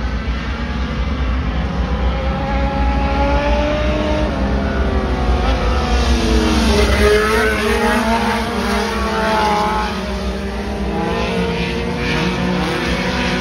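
Several front-wheel-drive race cars' engines running hard in a pack. Their engine notes dip together and then climb again about halfway through, where they are loudest.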